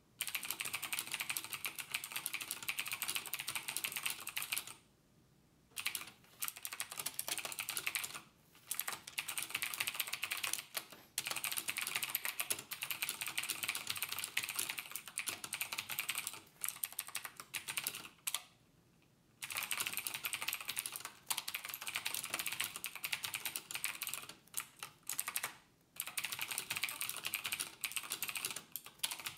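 Rapid typing on a computer keyboard: a dense run of key clicks that stops briefly every few seconds, with two longer pauses of about a second.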